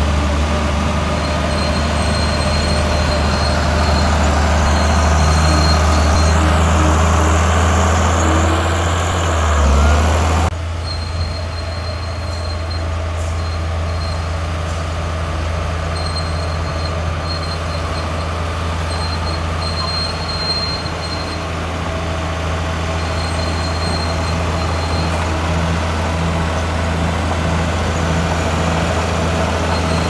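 Heavy diesel earthmoving machinery running with a steady low drone. About ten seconds in, the engine revs up briefly, then the sound cuts abruptly to a quieter, steadier engine running.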